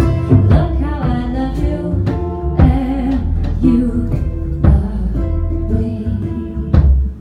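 Live band music: a woman singing over a strummed acoustic guitar, with upright bass and drums.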